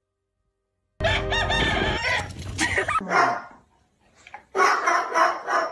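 A chicken crowing: one long, wavering call of about two seconds, starting about a second in. Near the end come two loud, harsh bursts of another sound.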